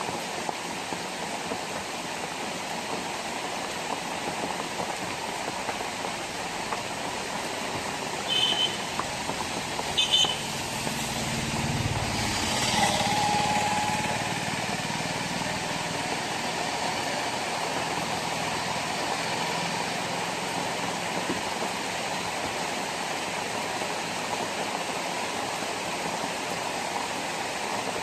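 Heavy rain falling steadily on a road. About eight and ten seconds in come two short horn toots, then an autorickshaw's small engine passes, loudest around twelve to fourteen seconds in.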